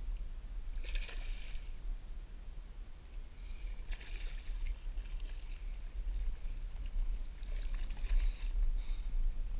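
Hooked bass splashing at the surface at the bank's edge as it is landed, in three short bursts about a second, four seconds and eight seconds in, over a steady low rumble.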